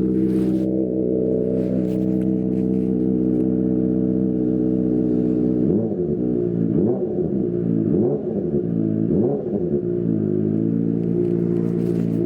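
Kawasaki ZX-25RR's 250 cc inline-four engine idling through a DX Generation Pro Race aftermarket exhaust. About six seconds in, it is blipped four times in quick succession, each rev rising and falling, then it settles back to a steady idle.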